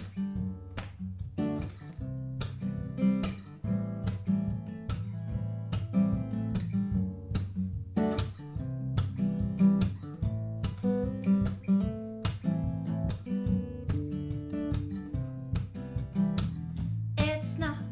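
Acoustic guitar strummed and picked with a bass guitar playing along in an instrumental intro. A woman's singing voice comes in just before the end.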